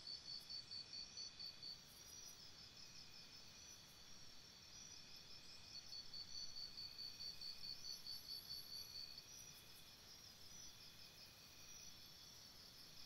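Faint insects chirping in rapid, evenly pulsed trills, about four to five pulses a second, several at different pitches at once. The strongest trill is heard at the start and again from about six to nine seconds in.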